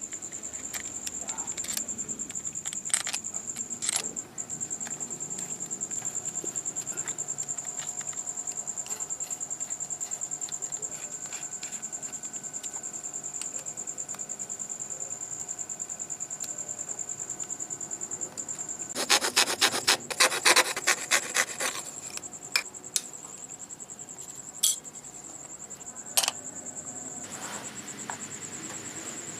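Steady high-pitched insect trilling, with scattered clicks and a loud run of rapid rubbing, rasping strokes about two-thirds of the way through.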